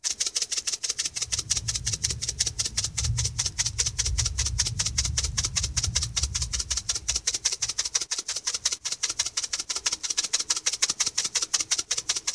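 Spice shaker of dried chopped onion flakes shaken hard and fast over a bowl, the flakes rattling in an even rhythm of several strokes a second. A low rumble sits under it for the first several seconds.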